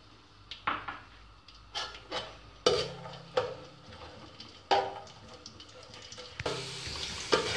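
Metal skimmer spoon clinking and scraping against a metal pot at irregular moments while raisins are stirred in hot oil. A faint sizzle of the frying raisins comes up near the end.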